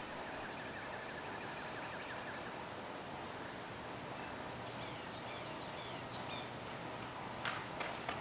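Quiet outdoor ambience: steady faint background noise with a few faint bird chirps. A few sharp clicks come near the end.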